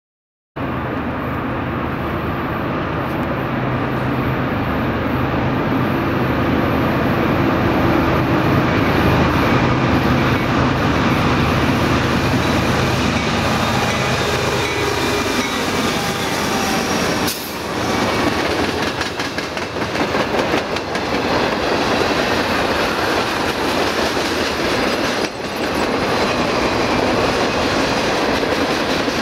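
CSX freight train passing, led by two GE diesel locomotives (an ES44DC and a C40-8W). Their engine drone drops in pitch about halfway through as they go by, and then the freight cars roll past.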